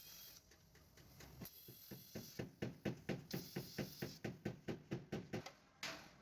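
Hammer tapping quickly on the car's steel body metal, an even run of knocks about five a second lasting some four seconds, then a short scraping hiss near the end.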